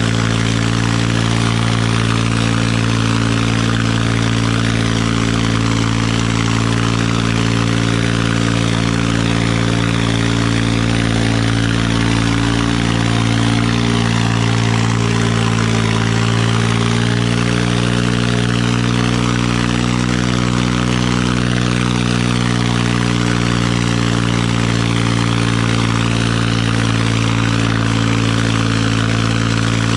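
Massey Ferguson 9500 tractor's diesel engine running hard and steady under heavy load while pulling two 8x8 harrows through the soil. Its note sags slightly about halfway through, then recovers.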